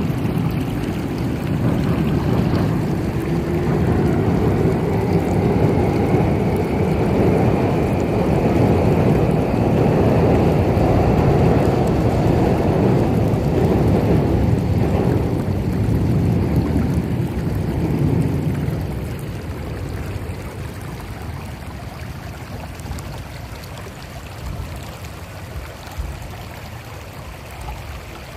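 Shallow creek rushing and babbling over stones, a steady water noise that grows louder a couple of seconds in and eases off to a softer flow about two-thirds of the way through.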